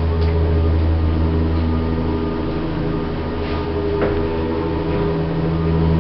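1960s Jensen lift running, a steady electric motor hum with several constant low tones as the car travels, with a single click about four seconds in.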